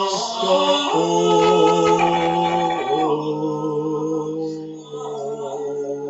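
Male vocal quartet singing a cappella in close harmony, holding long chords that change about one, three and five seconds in, softer after the last change.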